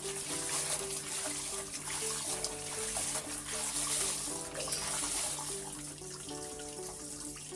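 Water running steadily from a tap during the rinsing of laundry, with background music playing under it.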